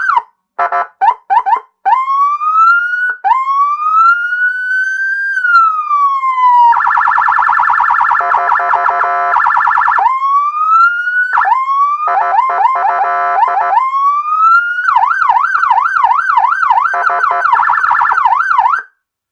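A 150-watt electronic police siren playing through a 300-watt horn speaker, loud, stepping through its tones. It gives a few short chirps, then slow wails rising and falling, then a harsh buzzing horn tone twice between further rising sweeps. Near the end comes a fast warbling yelp, which cuts off just before the end.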